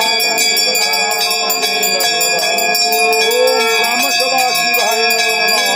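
Bells ringing steadily and without a break during a Hindu puja, with people's voices underneath.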